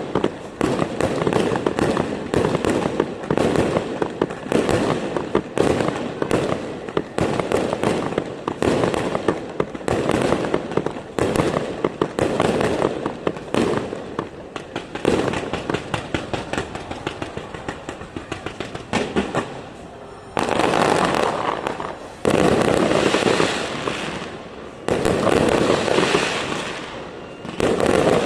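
Fireworks display: a dense barrage of rapid bangs for most of the stretch, giving way near the end to three longer unbroken stretches of noise of about two seconds each.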